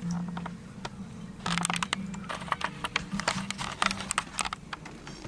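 A sleeper snoring: rattling, clicking snores in two bursts about two seconds apart.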